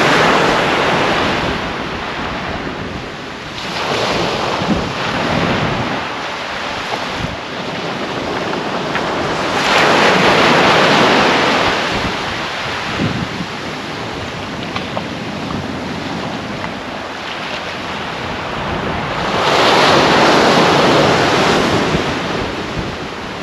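Small waves breaking and washing up a sandy beach, the surf surging and easing every several seconds, loudest about ten seconds in and again near the end.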